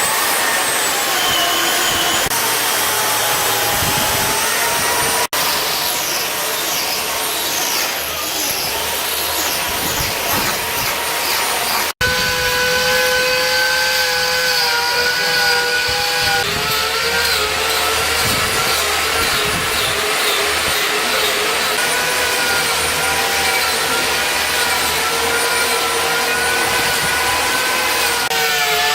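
Handheld power carving tool cutting into ash wood: a steady motor whine over rough grinding noise, its pitch dipping and recovering as the cutter bites. The sound breaks off abruptly twice, about five and twelve seconds in, then carries on.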